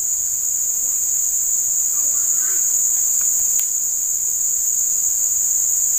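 Steady, high-pitched chorus of insects, with one faint click a little past the middle.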